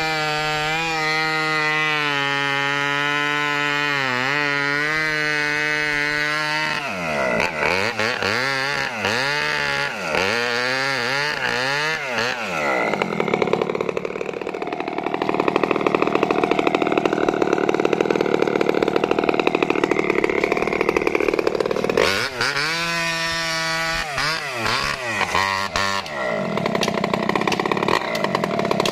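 Maestro mini two-stroke chainsaw running. It holds a steady tone at first, then its pitch swings up and down repeatedly as the throttle is worked. A louder, rougher stretch comes in the middle as the chain cuts into wood.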